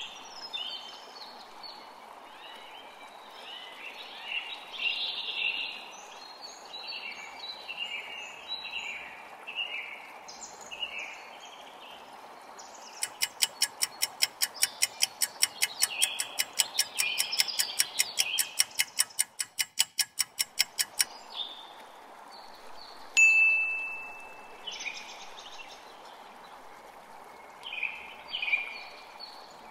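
Birds singing over a steady rushing background like running water. In the middle comes a rapid ticking, about five ticks a second, lasting about eight seconds. A few seconds later there is a single bright chime that rings out and fades.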